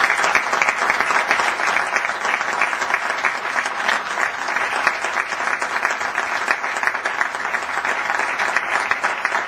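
Applause from councillors and audience in a council chamber: steady, sustained clapping by many hands.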